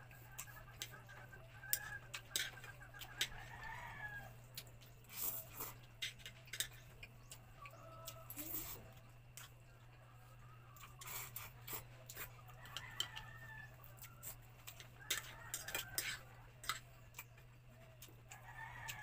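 Eating sounds: chopsticks clicking against ceramic bowls, with chewing and slurping of noodles. A rooster crows several times in the background over a steady low hum.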